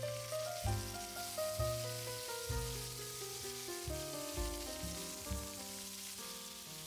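Thinly sliced pork sizzling in hot oil in a frying pan as the slices are dropped in, a steady frying hiss. Background music with stepping notes plays throughout.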